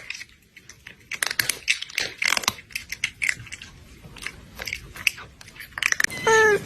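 Cat chewing and crunching, with irregular sharp clicks, then a short meow near the end.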